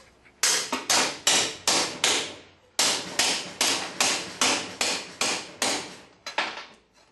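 Hammer striking welded eighth-inch steel plate gripped in locking pliers: a run of sharp metallic blows, each ringing briefly, about two to three a second, with a short pause partway and two quick final blows. The plate is being bent over to test how well the welds penetrated.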